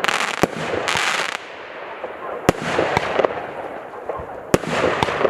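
Fireworks going off: sharp bangs about every two seconds, each followed by a long hissing crackle.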